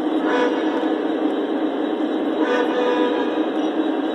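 Lionel O scale model freight train of tank cars rolling steadily along the track, its wheels and motors giving a constant rumble. Short high tones sound over it about a third of a second in and again about two and a half seconds in.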